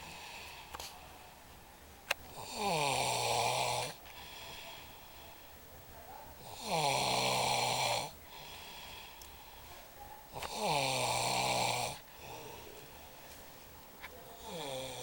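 A man snoring heavily in deep sleep: long loud snores about every four seconds, each falling in pitch over about a second and a half, with quieter breaths between them. A single sharp click about two seconds in.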